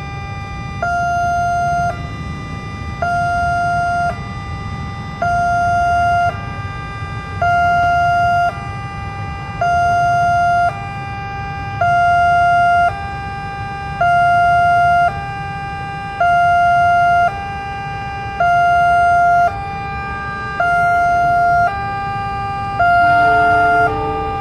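Automatic warning siren of a railway level crossing sounding a slow two-tone alternation: a louder lower tone and a slightly higher one, each about a second long, repeating every two seconds or so. A few other lower tones briefly join near the end.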